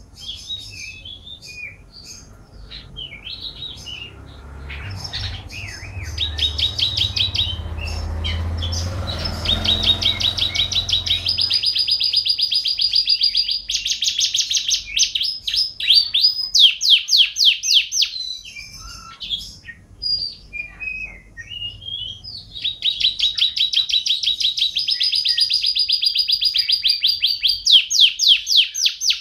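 Domestic canary singing: long, rapid trills of fast repeated notes, broken by short chirps and pauses, with the trills strongest through the second half.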